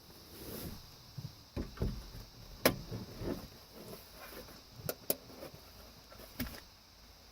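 Handling noise of an LED cab light and its wiring being fitted by hand: scattered soft knocks and small clicks, with a few sharper plastic clicks, two of them close together past the middle.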